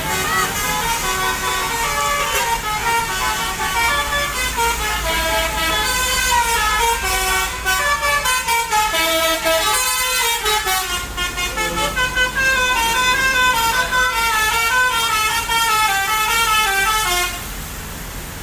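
Tour bus's Basuri 'telolet' musical horn with a DAV module playing a fast tune of short stepping notes, several tones sounding together, then stopping shortly before the end.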